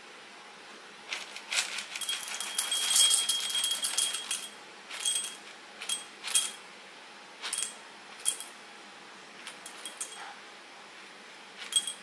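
Whole coffee beans pouring from the bag into a stainless steel dosing cup, rattling against the metal. A long pour comes about a second in, then short separate trickles as the dose is topped up to 18 grams.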